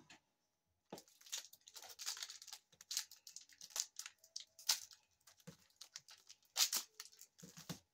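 Foil trading-card pack wrappers crinkling and tearing as they are slit open with a utility knife: a run of irregular crackles and sharp ticks starting about a second in.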